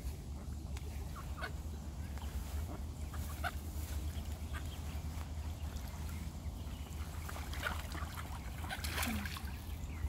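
Mallard ducks calling in short, scattered calls over a steady low rumble.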